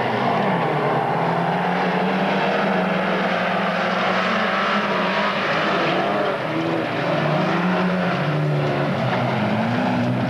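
Several folkrace cars racing, their engines revving up and down over one another.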